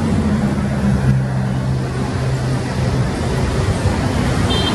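Steady rumble of engine noise with a low, even hum that fades out about three seconds in.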